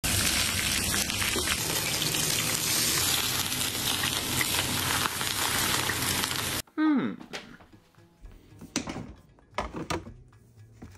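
Hot oil poured over a fish's scales, sizzling loudly, with the sizzle cutting off abruptly about six and a half seconds in. A short falling tone follows, then a few scattered light knocks.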